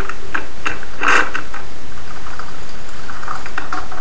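Irregular clicks and short clatters over a loud, steady hiss, heard through a low-quality Skype call recording.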